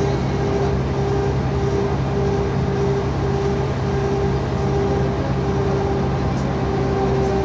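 Mercedes-Benz O405GN articulated bus's six-cylinder diesel engine running steadily, a constant low drone with a higher whine that drops out briefly every second or so.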